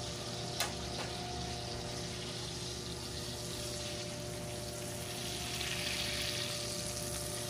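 Thick steak sizzling in hot butter in a cast-iron skillet as it is seared on its edge: a steady frying hiss that swells a little near the end. A light click, tongs touching the pan, comes under a second in.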